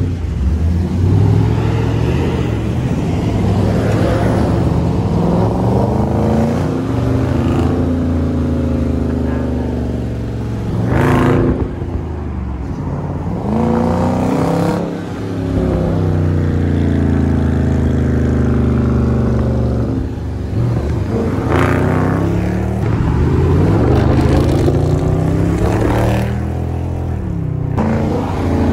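Dodge Charger R/T's Hemi V8 engine accelerating hard again and again. Its pitch climbs and then drops back at each shift.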